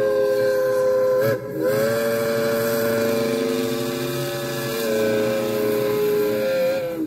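Steam locomotive whistle blowing long blasts of several tones at once, with a short break about a second and a half in.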